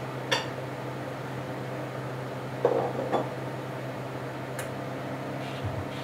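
Dishes clinking and knocking as a bowl is taken down from a wall cabinet and handled at the counter. There is a sharp clink just after the start, a louder clatter of knocks about three seconds in, and a light tick near five seconds, all over a steady low hum.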